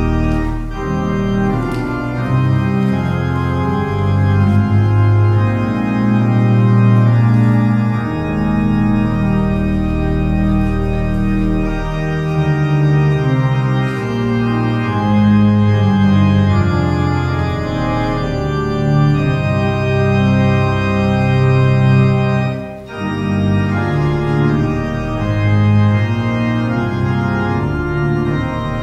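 Church organ playing slow, held chords, with a short break between phrases about 23 seconds in.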